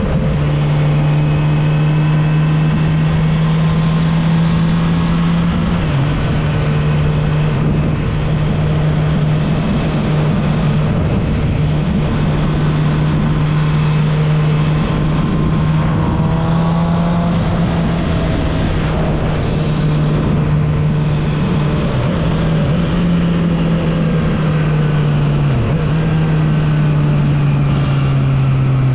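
Suzuki GSX-R750 inline-four engine running steadily while riding. The engine note dips briefly about 6 s and 25 s in, and the revs ease off near the end, over a steady rushing noise.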